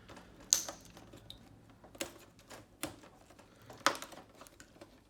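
Sharp clicks and knocks of an LCD television's panel and frame parts being handled while the screen is taken off: four distinct clicks with lighter ticks between, the loudest a little under four seconds in.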